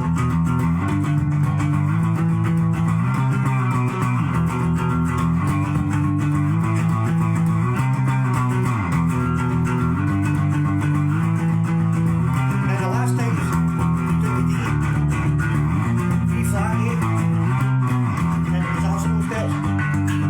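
Electric bass guitar playing a repeating, stepwise chord progression, with a rock band's electric guitar solo bending over the top.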